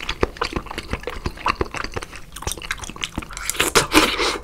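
Close-miked wet chewing of raw salmon slices in sauce: a steady run of soft, sticky mouth clicks and squishes, louder for a moment near the end as another piece goes into the mouth.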